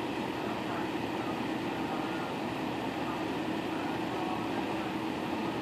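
Steady machine hum with an even hiss and a faint low tone.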